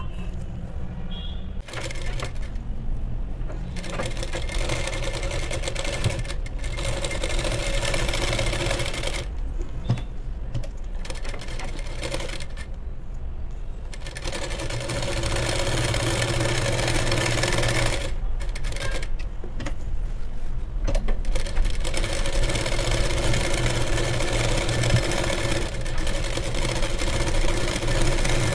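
Sewing machine stitching a seam through brocade blouse fabric, running in stretches of several seconds with a few short pauses as the fabric is repositioned.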